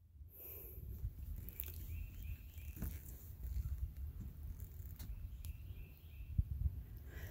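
Wind buffeting the microphone as a low uneven rumble, with a faint series of short bird chirps in two runs.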